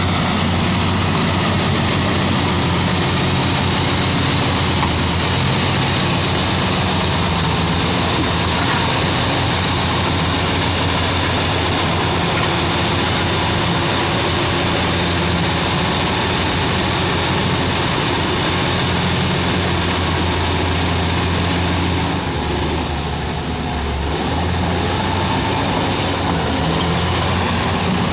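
Komatsu D155 bulldozer's diesel engine running steadily at idle, with a deep, even hum. The level dips briefly about three-quarters of the way through.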